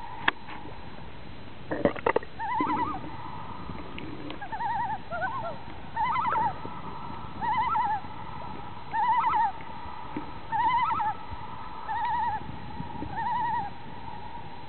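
A fall raft of common loons calling over and over: short quavering, laughing tremolo calls about every second and a half, with several birds overlapping. Two sharp knocks come in the first two seconds.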